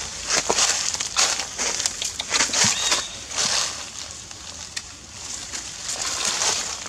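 Dry leaf litter crackling and rustling in irregular bursts as a macaque walks and forages over it.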